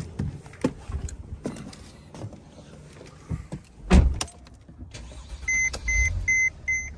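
Mercedes-Benz Sprinter van's diesel engine started with the key and settling to idle in the cab, after a few clicks and a heavy thump about four seconds in. From about five and a half seconds a steady electronic chime beeps nearly three times a second: the unbuckled-seatbelt warning.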